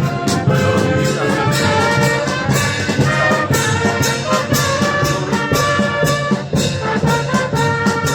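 Herald trumpets and other brass playing a fanfare over rapid, steady drumming.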